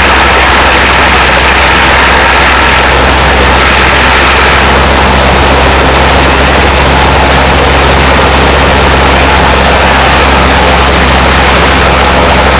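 Mosquito XE microlight helicopter in flight, its engine and rotors making a loud, steady drone with a constant low hum and a dense rushing hiss.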